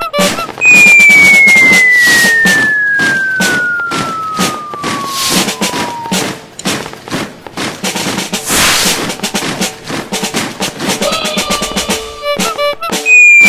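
A whistle gliding steadily down in pitch for about five seconds, starting about half a second in, over a dense rattle of clicks and pops. Near the end a buzzy horn-like tone sounds briefly.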